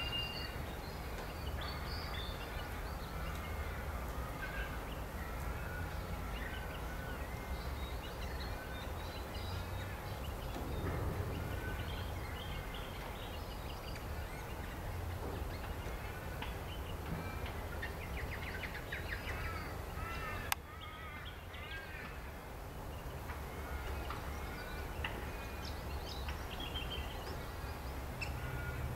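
Many birds chirping and calling over a steady low rumble, with quick runs of repeated chirps around the middle. A sharp click comes about twenty seconds in, and the background is a little quieter after it.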